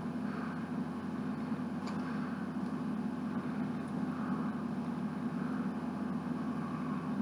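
Steady low mechanical hum, with a couple of faint clicks as small Lego bricks are handled and fitted together.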